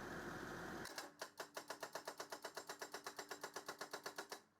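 A steady noise with a low hum cuts off abruptly about a second in and gives way to a rapid, even ticking of about eight clicks a second over a faint steady tone, which stops just before the end.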